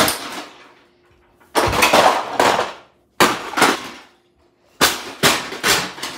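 Sharp plastic cracks and bangs as an HP printer's cover panels are forced and broken off, coming in four bursts of knocks with short pauses between.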